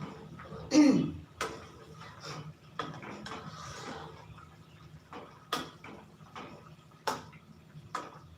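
Cooking utensils clinking and knocking against a pot or pan at uneven intervals, over a steady low hum. The loudest moment is a short low sound sliding down in pitch about a second in.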